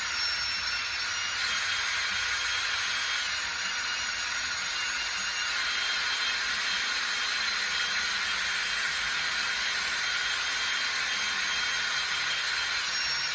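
Compressed air blowing in one long, steady hiss from an air nozzle or air tool, switched on and off abruptly.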